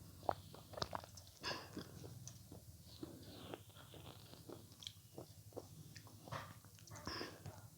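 Close-miked biting and chewing of avocado: irregular sharp mouth clicks and short wet crunches, a few a second.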